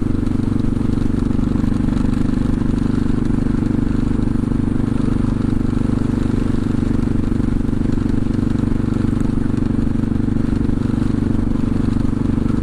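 CCM DS 644's big single-cylinder engine running at steady revs while the bike is ridden along the road, with an even, unchanging note and no revving up or down.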